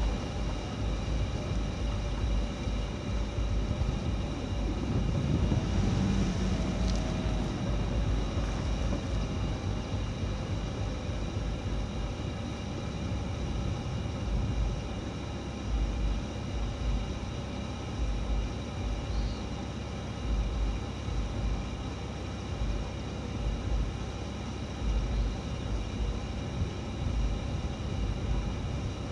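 An engine running steadily, with an uneven low rumble beneath it.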